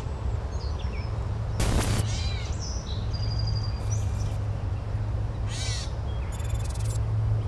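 Birds calling in a woodland ambience: a few short, harsh, crow-like calls spaced a few seconds apart over a steady low rumble, with a brief rush of noise about one and a half seconds in.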